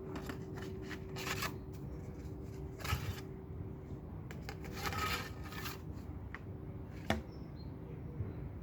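Intermittent rustling and handling noises: three rustles and a sharp click about seven seconds in, over a steady low rumble and a faint steady hum.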